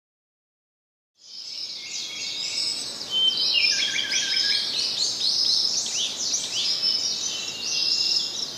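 Several birds calling at once: a dense run of quick, high chirps and short squeaky gliding notes. It fades in about a second in after a moment of silence.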